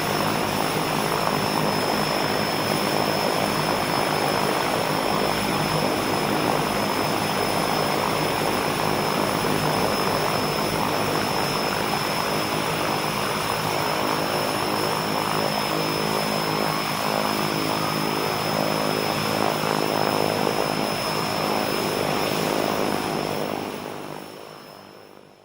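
Beechcraft King Air's twin turboprop engines idling, heard from outside: a steady propeller drone with a high, even turbine whine over it, fading out near the end.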